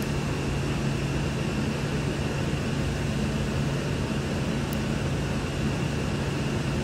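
Steady hum and hiss of running machine-shop machinery, unchanging throughout.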